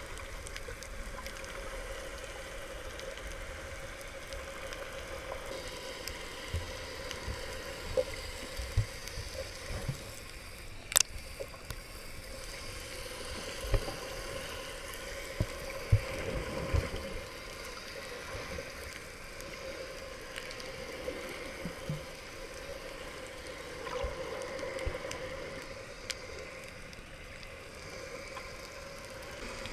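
Underwater water noise muffled through a GoPro Hero 3+'s waterproof housing: a steady wash with scattered knocks and clicks, the sharpest about eleven seconds in.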